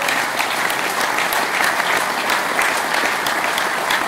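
Audience applauding: steady, dense clapping of many hands.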